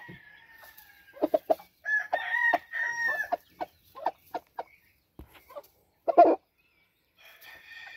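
Game chickens: a rooster crows about two seconds in, with short clucks throughout, one loud cluck about six seconds in, and another crow starting near the end.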